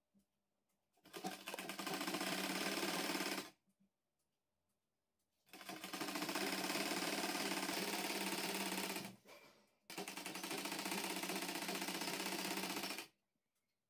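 Sewing machine stitching in three runs of a few seconds each at a steady pace, stopping briefly in between.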